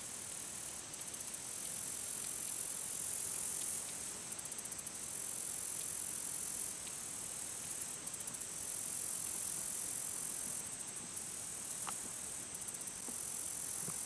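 Insects buzzing in a steady high-pitched drone, broken every few seconds by short trains of rapid, rattling pulses.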